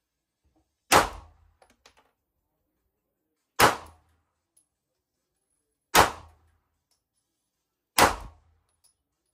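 Four pistol shots from a Glock 43X MOS in 9mm, fired slowly and spaced about two to two and a half seconds apart. Each is a sharp crack that dies away quickly.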